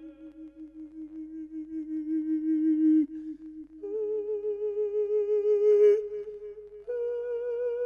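A Buddhist monk's voice in Isan lae sermon-chanting: three long held notes with a wavering vibrato, each pitched higher than the one before, with short breaths between them.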